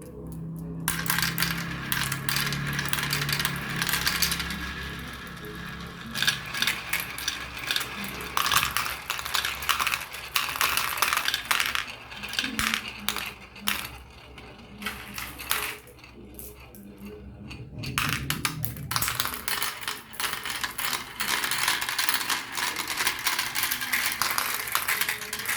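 Marbles clattering down a marble run: a dense stream of rapid clicks and clacks that thins out for a few seconds about two-thirds of the way through, then picks up again.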